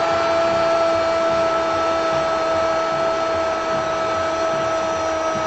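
Stadium crowd cheering steadily after a goal, with a flat steady tone held over the noise.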